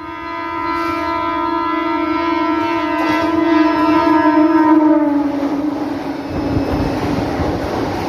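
Horn of a suburban electric train sounding one long, steady, reedy note as the train approaches, the pitch falling about five seconds in as it passes close by. The rumble of the train running past follows.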